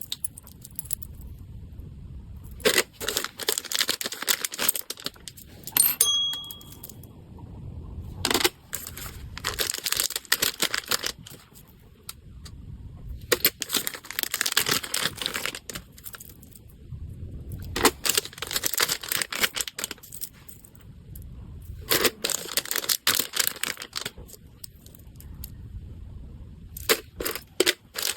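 Packaging being handled in repeated bouts of crinkling and tearing, a second or two each with short pauses between. A brief ringing tone sounds about six seconds in.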